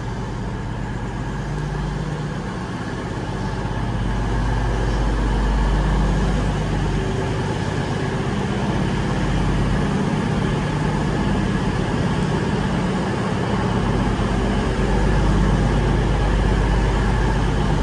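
CrossCountry Class 220 Voyager diesel multiple unit standing at the platform with its underfloor diesel engines idling: a steady low drone that grows a little louder about four seconds in.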